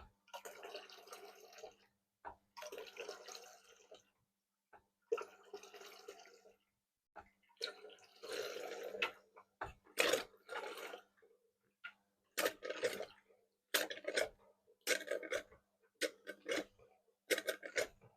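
Hot rinse water gushing and gurgling out of a hand-pulled beer engine's spout with each pull of the handle, a series of long spurts about 1.5 s each at first, then shorter, quicker spurts about once a second in the second half.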